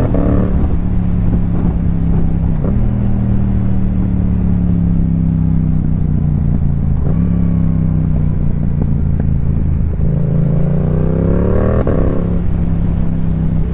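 2022 Yamaha YZF-R7's 689 cc parallel-twin engine through a Yoshimura R77 exhaust, heard from the bike while riding. The engine note sags slowly for about ten seconds, then rises under throttle near the end and drops back.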